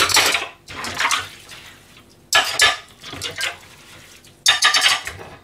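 Plates and pans clattering against each other in a stainless steel sink as they are scrubbed by hand, with some water splashing; four separate bursts of clatter.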